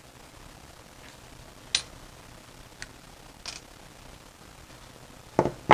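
Small side cutters snipping off pieces of a thin brass panel: a few sharp clicks spaced about a second apart, the loudest about two seconds in, then a duller knock near the end.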